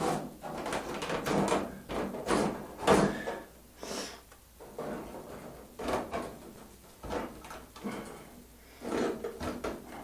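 Irregular clattering, knocking and rustling of objects being handled close to the microphone, with a few louder knocks about 3 seconds and 6 seconds in.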